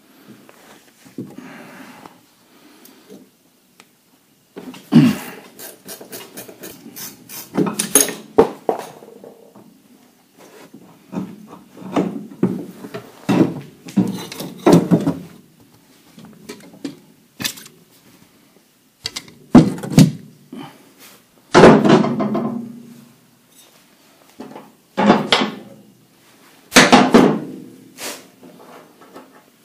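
Hand tools and metal parts knocking and clanking at irregular intervals, with several loud thunks, during work on a car's rear suspension and shock absorber mounts.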